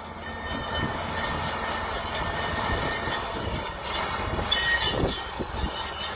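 Excavator at work: a steady high metallic squeal and whine over the rumble of the machine. A few low thumps come near the end.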